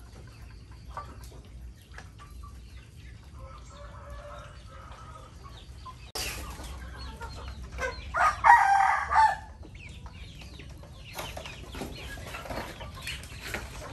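Farmyard chickens clucking, with a rooster crowing once for about a second and a half about eight seconds in, the loudest sound here.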